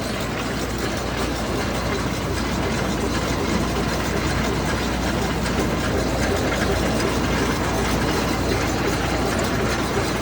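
A heavy engine running steadily, with an even low hum and no change in speed.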